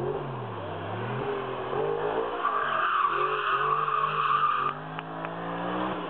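A race car's engine under hard throttle, its revs dipping and then climbing again, with the tyres squealing for about two seconds in the middle. Two short clicks come near the end.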